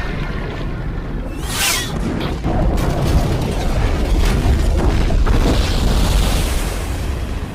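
Action-film soundtrack: a music score over a deep, continuous booming rumble. A whoosh sweeps through about a second and a half in, followed by a few sharp hits.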